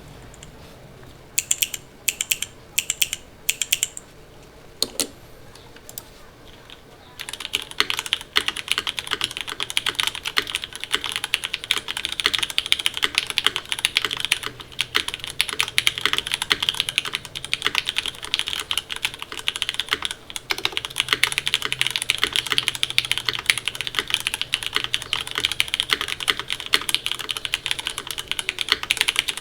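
Typing on a Cloudline mechanical keyboard with an O-ring-mounted aluminium plate, no foam, lubed Cherry MX Black linear switches and GMK doubleshot ABS keycaps. The first few seconds hold a few separate keystrokes. From about seven seconds in it becomes steady, fast, continuous typing.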